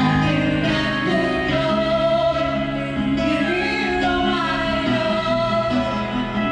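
A woman singing karaoke into a corded microphone over a backing music track, both played through the karaoke system's speakers.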